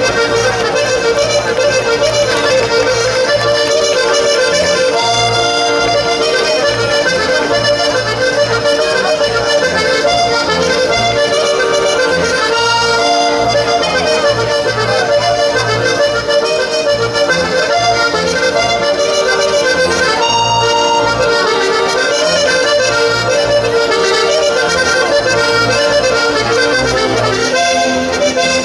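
Accordion playing a Sardinian ballo dance tune: a running melody over a bass that pulses in a regular rhythm.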